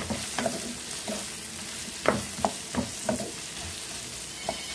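Elephant foot yam cubes sizzling in oil in a frying pan, with repeated spatula scrapes and knocks against the pan as they are stirred, the strokes loudest around the middle.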